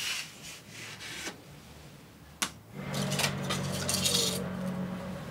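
A feather brush sweeping the rim of a sunken charcoal hearth in a few soft strokes. Then, about halfway, a sharp click, followed by metal charcoal tongs clinking and scraping against pieces of charcoal as the charcoal is laid to heat the tea water. A low steady hum runs under the second half.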